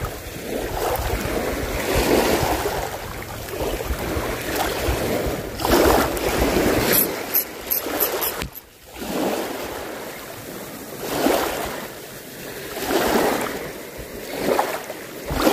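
Small sea waves washing in on the shore in repeated surges every few seconds, with wind rumbling on the microphone for the first half. A few quick faint ticks come about seven seconds in.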